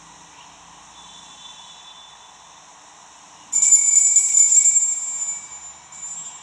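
Altar bells shaken, a bright jingling ring that starts suddenly about three and a half seconds in and dies away, with a smaller second shake near the end. They are rung as the priest drinks from the chalice at his communion.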